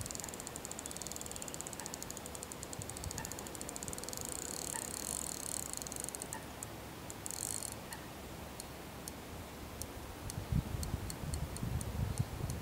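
Fishing reel ticking while a hooked tench is played on a bent rod: a fast run of fine ticks for about the first half, then slower, scattered single ticks. Some low rumbles near the end.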